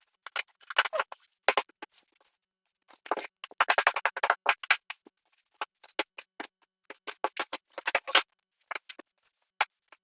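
Quick runs of sharp taps and clicks, several a second, coming in bursts with short pauses between them, from vinyl flooring being fitted into place.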